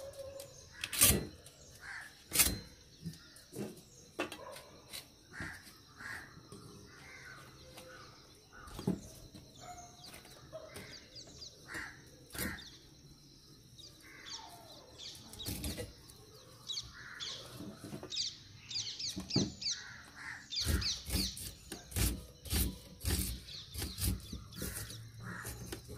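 Crisp cutting clicks and taps as a pandan leaf and green chillies are sliced against a fixed curved blade over a wooden board, coming quickly near the end. Crows cawing and small birds chirping in the background.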